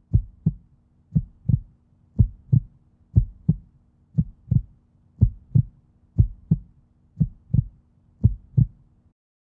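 Heartbeat sound effect: a slow, even double thump (lub-dub) about once a second over a low steady hum, stopping shortly before the end.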